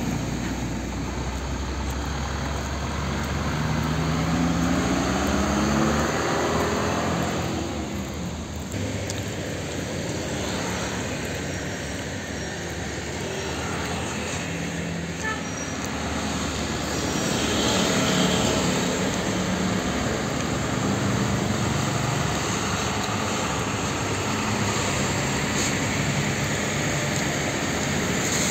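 Heavy diesel trucks, a Mitsubishi cargo truck and a Hino 500 bulk cement tanker, pulling slowly through a junction over steady road traffic, their engine pitch rising a couple of times as they accelerate.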